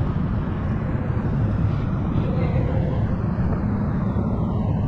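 Steady low rumble of wind and movement noise on a body-worn action camera's microphone as the wearer moves about the pitch.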